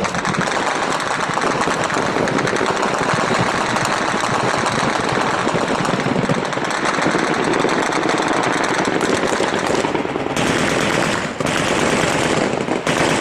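Sustained heavy automatic gunfire, the rapid shots running together into a continuous rattle, with a few short breaks near the end.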